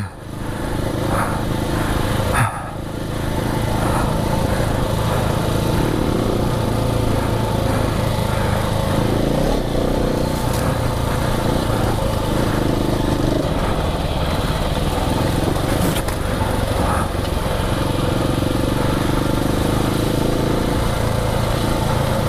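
KTM 690 Enduro R's single-cylinder engine running under throttle on a dirt trail. It dips briefly about two and a half seconds in, then runs steadily, swelling and easing as the throttle changes.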